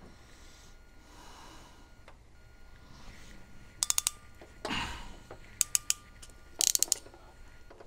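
Ratcheting hand tool clicking in three short bursts of quick clicks, with a brief scrape between them, as a poor earth lead connection on the spotlight wiring is redone.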